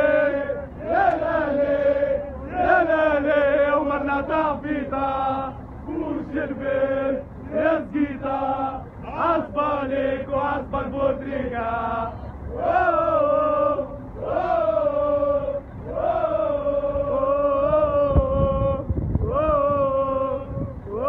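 A crowd of male football supporters chanting a song together, in short repeated phrases that rise and fall in pitch.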